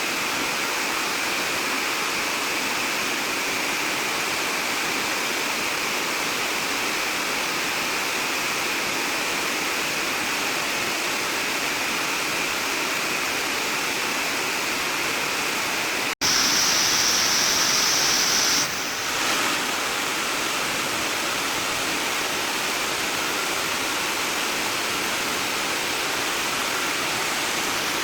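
Rushing floodwater, a steady noisy rush of flowing water. A sudden break about 16 seconds in is followed by a louder, hissier rush for two or three seconds, then the steady flow again.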